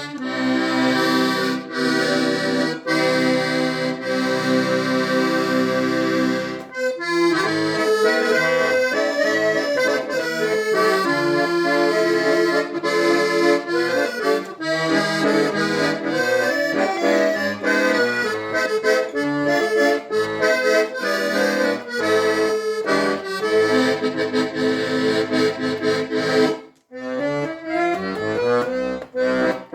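A 1930 Hohner Organola accordion being played before its repair: held chords at first, then a moving tune, with a short break after about six seconds and another shortly before the end.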